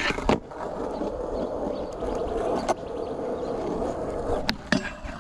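A skateboard is set down on rough concrete with a clack, and its wheels roll along for about four seconds. Near the end come two sharp clacks as the board meets and comes off a round metal rail on a 50-50 grind attempt.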